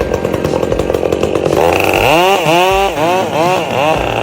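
Stihl MS 462 C-M 72 cc two-stroke chainsaw running. It holds a steady pitch at first, then about halfway through revs up and down about five times in quick succession.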